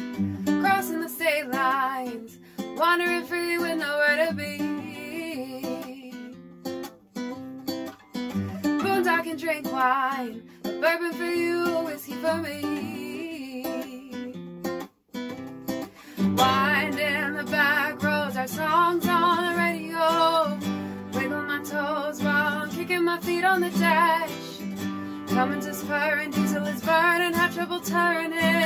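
A woman singing a song to a strummed acoustic guitar. There is a short break about halfway through, after which the guitar comes in fuller.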